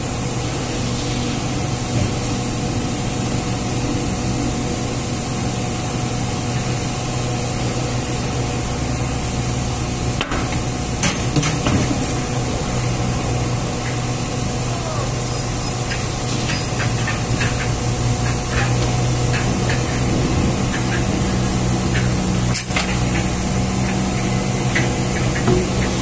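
Steady machinery hum with scattered hollow knocks of sengon logs being unloaded and striking one another. The knocks come in a cluster about ten seconds in, then more often through the second half, with one sharp knock near the end.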